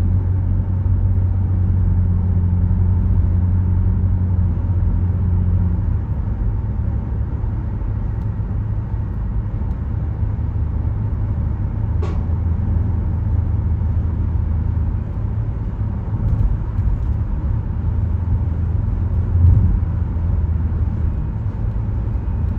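Car driving at speed: a steady low rumble of engine and tyre noise. A short sharp click comes about halfway through, and a low thump near the end.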